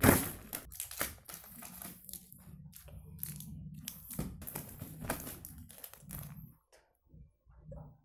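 Gift packaging being crumpled, crinkled and torn open in quick, irregular rustles. The loudest crackle comes right at the start, and the rustling thins out about two-thirds of the way through.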